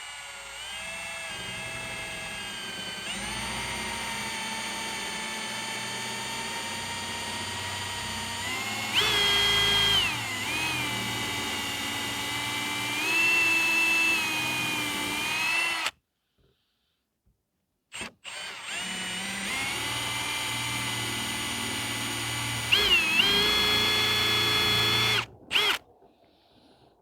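Power drill boring a 5/8-inch hole through fence wood, its motor whining steadily with the pitch dipping and shifting as the bit bites. It stops about halfway through, gives a brief blip, then runs again and stops shortly before the end.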